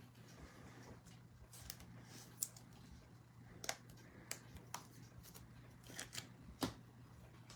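Faint handling of trading cards: a dozen or so short clicks and rustles as cards slide and tap against each other, over a low steady hum.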